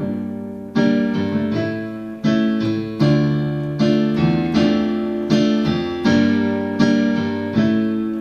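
Electric piano or keyboard playing a slow accompaniment: a chord struck roughly every three-quarters of a second, each fading before the next.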